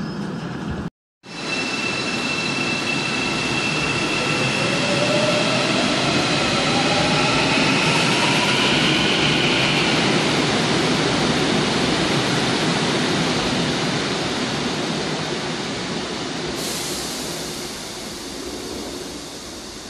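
Busan Metro Line 3 train pulling out beside the platform screen doors: its electric motors whine, rising in pitch as it speeds up, over steady rolling noise. The noise fades as the train moves away.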